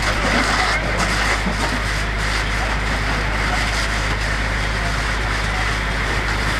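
Burning travel trailer and brush: a steady rushing noise with a few faint crackles, over the steady low rumble of an idling vehicle engine.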